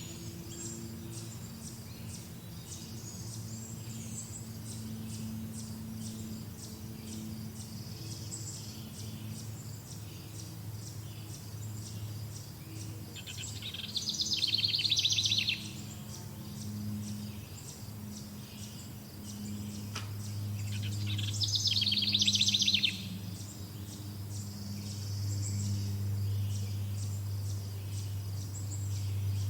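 Songbirds singing outdoors, with two loud rapid trilled phrases of about two seconds each, about halfway and two-thirds of the way through. Under them runs a constant high, fast-pulsing chirping and a low steady hum.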